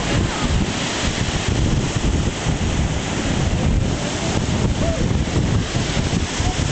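Breaking sea surf washing in continuously, with heavy wind buffeting the microphone.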